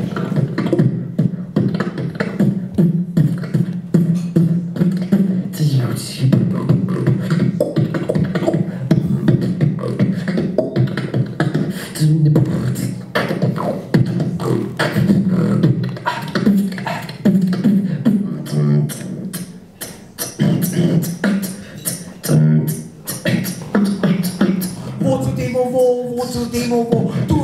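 Solo human beatboxing into a handheld microphone: a fast, dense beat of sharp clicks and hisses over a low hum, with a wavering pitched vocal line near the end.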